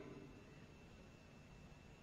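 Near silence: room tone, a faint steady hiss with a thin high tone held throughout.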